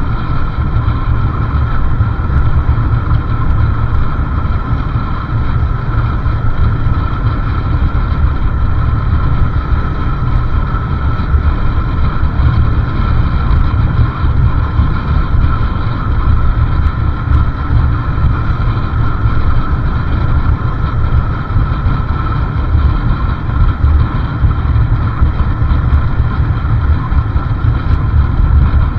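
Motorcycle underway at a steady speed, its engine running under a heavy wind rumble buffeting the microphone.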